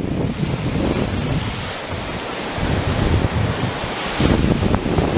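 Ocean surf breaking and washing up over the sand, with wind buffeting the microphone. The wash grows louder about four seconds in as a wave comes up the beach.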